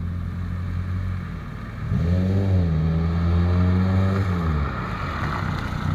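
Engine of a turbocharged Renault Super 5 accelerating. Its note rises about two seconds in, holds, then drops away as the driver comes off the throttle, over a steady low engine hum.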